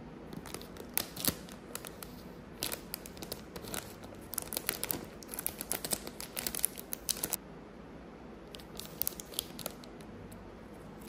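Plastic snack packet of dried squid crinkling and crackling as it is handled and torn open, densest in the middle and stopping about seven seconds in, followed by a few brief crinkles as the opened pack is handled.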